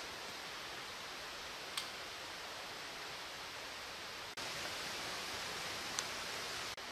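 Steady hiss of outdoor ambience, an even noise with no distinct source, with two faint short ticks, one about two seconds in and one near the end. It dips briefly about four seconds in and comes back slightly louder.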